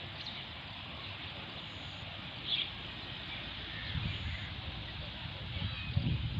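Rural outdoor ambience: a steady faint hiss, with a short high chirp about two and a half seconds in and low rumbles around four and six seconds in.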